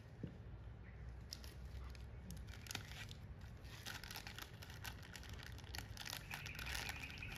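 Crinkly plastic snack wrapper being worked open by hand: a run of sharp crackles that starts about a second in and grows thicker in the second half.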